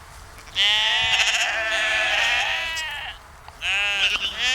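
Sheep bleating: one long, wavering bleat lasting a couple of seconds, then after a short pause a second bleat starting near the end.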